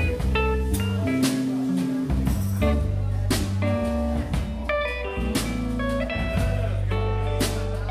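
Live instrumental band: electric guitar playing a line of single notes over electric bass and a drum kit, with cymbal strikes about once a second.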